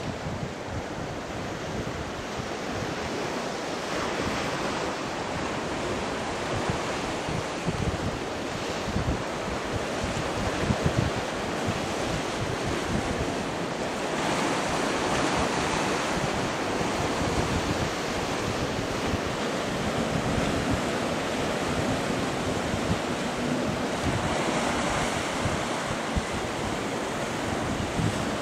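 Sea waves breaking and washing against a rocky shore in a continuous surf noise, with wind buffeting the microphone. The surf grows a little louder about halfway through.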